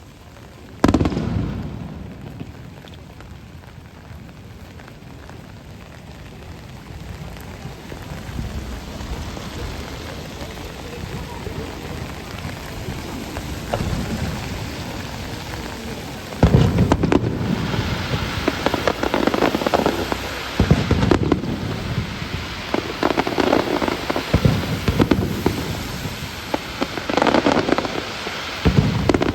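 Firework shells bursting over steady rain: one sharp boom about a second in, then from about halfway a rapid run of booms.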